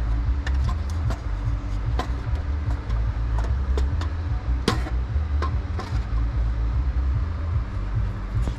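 Steady drone of running crypto-mining rigs' cooling fans, with scattered clicks and knocks of equipment being handled; one knock just under five seconds in is the loudest.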